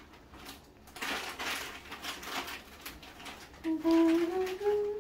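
Plastic bag crinkling and rustling as curry powder is handled and poured into a plastic jar, then a low voice humming a few notes that step upward in pitch near the end.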